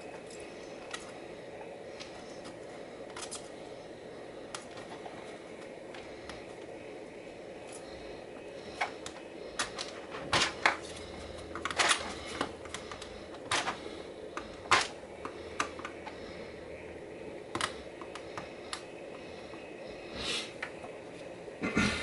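Sharp clicks and taps of hand tools on a keyboard circuit board as key switches are desoldered: a few scattered at first, then a busy run of louder snaps in the middle, over a steady low hum.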